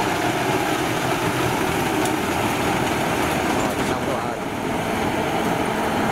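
Kubota combine harvester running steadily under load as it cuts rice, a loud continuous engine and machinery drone with a brief slight dip about four seconds in.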